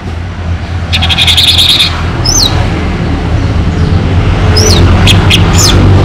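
Orange-headed thrush singing: a fast, rattling run of high notes about a second in, then two sharp down-slurred whistles and a few short, sharp notes near the end. A steady low rumble runs underneath.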